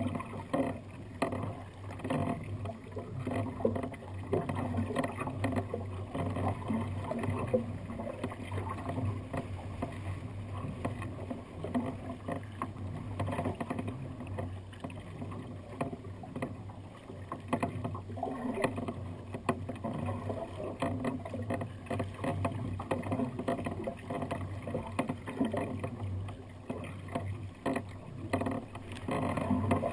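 Sea kayak moving through choppy sea: water sloshing and slapping against the hull, with irregular small splashes and knocks.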